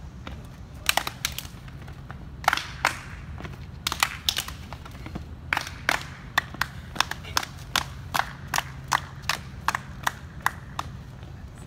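Hand claps and body slaps of an unaccompanied gumboot dance, first in short irregular groups, then in a steady beat of about three a second from about halfway in.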